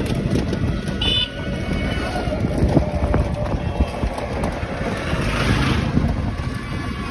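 Motorcycle riding along a road: engine running under a constant rumble of wind on the microphone. A short high beep sounds about a second in.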